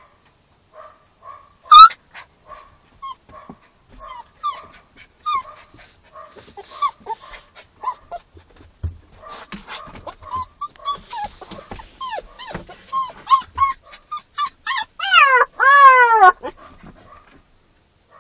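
Newfoundland-Labrador mix puppy whining in a string of short, high whimpers and yips, with one sharp, loud yelp about two seconds in. The cries come faster and faster, and near the end break into a few louder, longer rising-and-falling howls. The sign of a puppy in distress at being shut away from its people.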